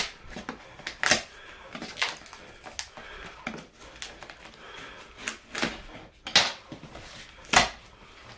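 Corrugated cardboard box being torn open by hand: a string of short, irregularly spaced ripping tears, the loudest about a second in and again near the end.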